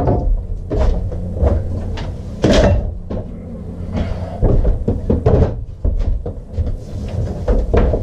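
Repeated knocks, bumps and clatter of a portable DeWalt table saw being lifted, shifted and set down on a wooden bench.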